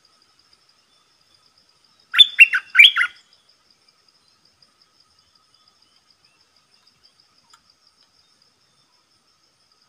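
A bulbul sings one short, loud phrase of about four quick notes, each sweeping downward, around two seconds in. A faint, fast insect trill runs underneath.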